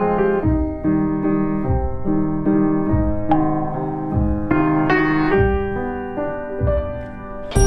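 Background music: a gentle solo piano piece with notes struck about twice a second, and a louder chord entering near the end.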